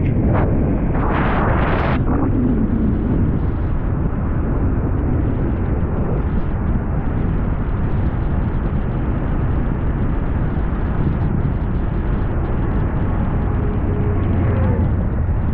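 Car driving: a steady low rumble of road and wind noise buffeting the microphone, with a short louder rush of noise about a second in.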